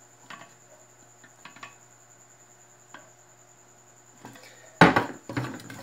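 Faint scattered clicks as the handle screw of an aluminium pressure cooker is worked on, then about five seconds in a sharp metallic clank and a short rattle from the pot.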